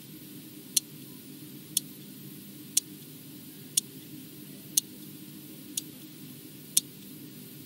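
Swatch quartz wristwatch ticking once a second, each tick a short sharp click, over a faint low hum. This ticking noise is what the makers admitted was the Swatch's one real defect.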